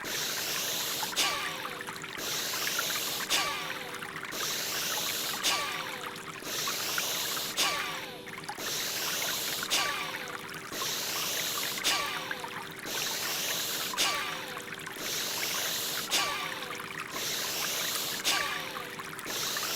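Bhastrika bellows breathing sound effect: a forceful breath in and out, repeating about every two seconds in an even rhythm, over a steady running-water background.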